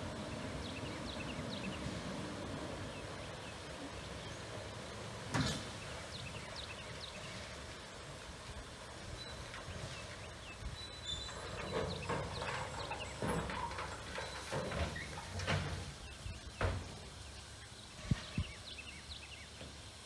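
A steam locomotive tender fills from a water tower spout with a steady rushing noise. There is a single knock about five seconds in, then a run of metal clanks and knocks in the second half as the spout is raised and the tender's filling hatch is worked. Small birds chirp faintly.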